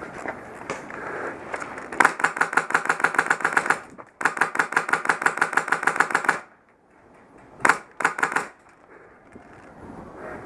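Airsoft gun firing on full auto: two long bursts of rapid, evenly spaced shots, then two short bursts near the end.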